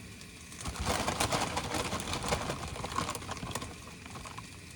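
Raw spinach leaves being piled into a pan of cooking onions: a burst of crackling and rustling lasting about three seconds, dying away near the end.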